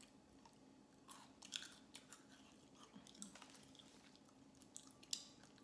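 Faint, close-miked chewing of a thin crunchy biscuit stick, with scattered small crisp bites and crunches over a low steady hum.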